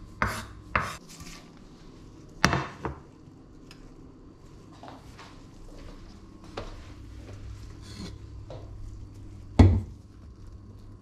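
Chef's knife chopping onion on a wooden cutting board: two sharp strikes in the first second, then a louder knock a moment later. Faint handling noises follow, and one loud thump comes near the end.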